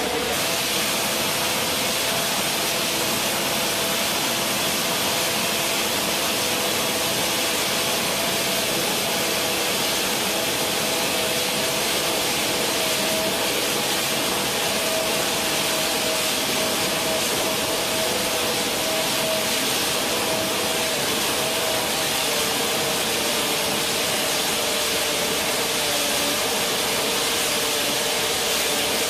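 Vertical screw unloader running steadily as its rotating intake head digs into loose bulk material: an even hiss with a steady hum.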